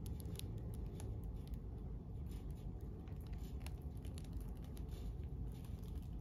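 Faint handling noise: light scattered clicks and rustles over a low steady hum.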